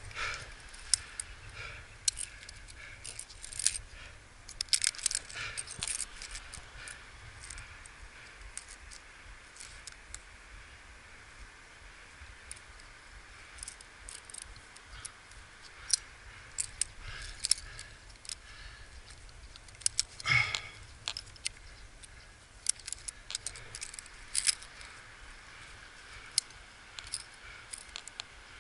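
Metal carabiners and climbing hardware clinking and clicking as they are handled and clipped, in scattered sharp clicks, with one louder clatter about two-thirds of the way through.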